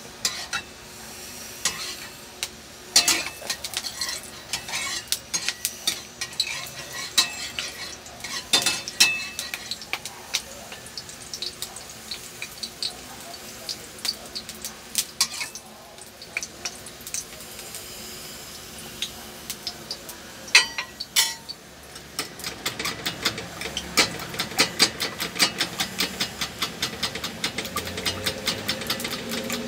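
Bananas frying in oil in a pot, sizzling, with the clink and scrape of a spoon turning them. About two-thirds of the way in, a spoon begins beating eggs in a bowl: quick, steady clinking.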